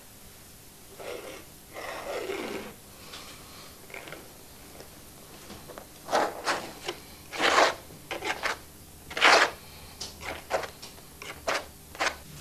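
Painting knife scraping and spreading thick paint across a canvas in a series of short strokes, softer at first and sharper and louder in the second half.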